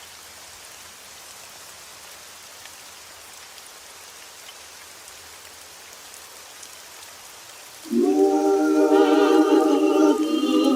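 Steady rain, an even hiss of falling drops. About eight seconds in, a man's unaccompanied singing voice comes in over it, holding a long note with vibrato.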